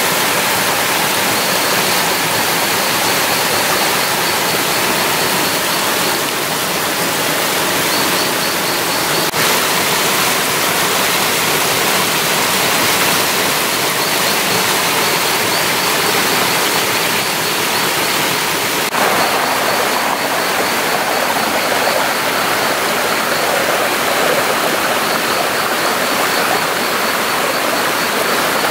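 Steady rushing of running water, like a stream flowing.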